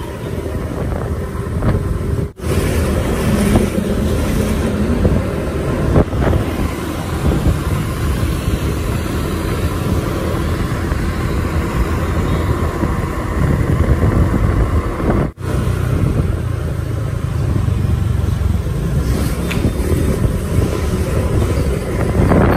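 Steady engine, wind and street-traffic noise heard from the back of a moving motorbike taxi, with a heavy low rumble. The sound cuts out for an instant twice.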